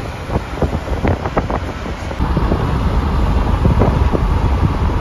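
Wind buffeting the microphone over traffic noise: a loud, rushing rumble with gusty thumps, changing character about two seconds in.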